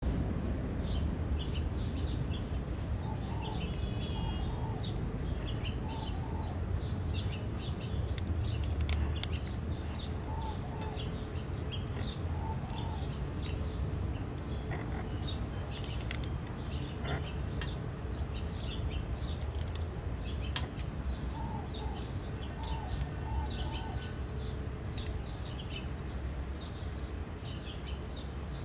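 A yellow-headed amazon parrot crunching carrot with its beak: many small crisp crunches and clicks, with a few louder snaps and the occasional soft chirp.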